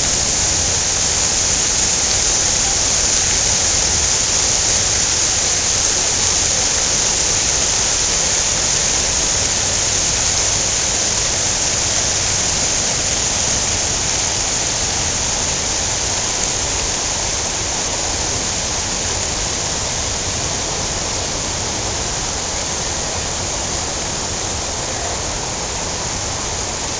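Fountain jets splashing into a large pool, a steady rush of falling water that grows slightly fainter over the second half.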